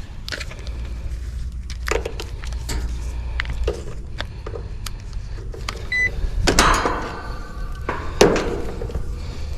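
Clicks, knocks and rustling of hands handling tools and equipment, with a short electronic beep about six seconds in and two louder scuffing noises near the end, over a steady low hum.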